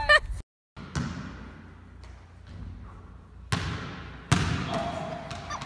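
Hard thuds echoing in a gymnasium, typical of a ball bouncing or striking: one about a second in, then two louder ones close together past the middle, each trailing off in the hall's echo.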